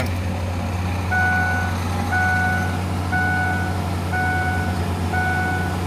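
Pickup truck's seatbelt warning chime dinging five times, about once a second, a steady tone each time: the warning for an unbuckled belt, now that the seatbelt plug is connected. A steady low hum from the truck's idling engine runs under it.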